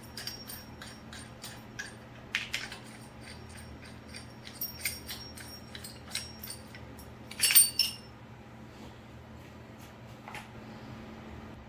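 Metal tools and parts clinking and tapping in a string of light clicks, with one louder, ringing metal clank about seven and a half seconds in. A low steady hum runs underneath.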